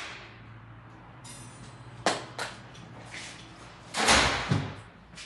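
Kitchen handling noises while spices are being added: two sharp clicks about two seconds in, then a louder burst of rustling noise about four seconds in, over a low steady hum.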